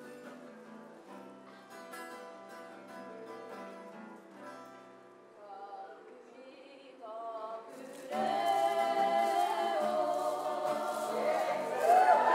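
Acoustic guitar quietly picking an introduction, then a single voice sings a short lead line. About eight seconds in, the whole kapa haka group joins in full-voiced unison song, much louder.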